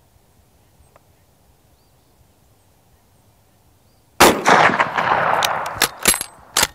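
A single shot from an 11mm Mauser Model 71/84 service rifle about four seconds in, ringing out for over a second. It is followed by a quick run of sharp metallic clicks as the bolt is worked.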